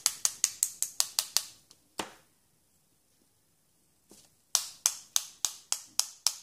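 A paintbrush tapped over and over, sharp clicks about three or four a second, flicking spatters of wet shimmer paint onto a card. The tapping stops about a second and a half in, gives one more click, and after a short quiet gap starts again about halfway through.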